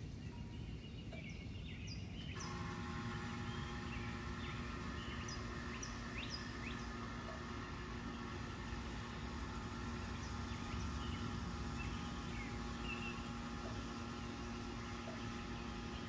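Birds chirping with short, high calls over a low outdoor rumble. About two and a half seconds in, a steady hum with several fixed pitches starts abruptly and keeps going underneath the chirps.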